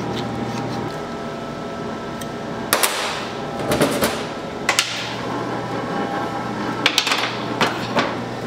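Irregular sharp knocks, about six spread over several seconds, each with a short ring after it, over a steady low hum.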